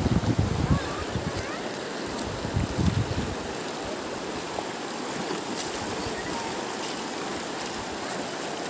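River water flowing, a steady rushing hiss. Low rumbling thumps come through during the first three seconds or so.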